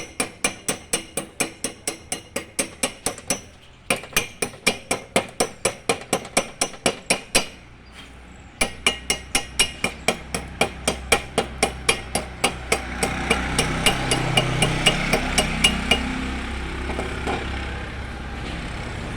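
A hammer striking metal rapidly, about four ringing blows a second, in three runs with short pauses. A low steady engine-like rumble comes up about two-thirds of the way through, and the blows stop shortly after.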